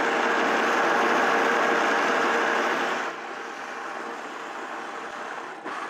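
High-powered countertop blender running loud, blending a thick mixture of almonds, soaked bread and water. It runs at a higher speed for about the first three seconds, then drops to a lower, quieter speed.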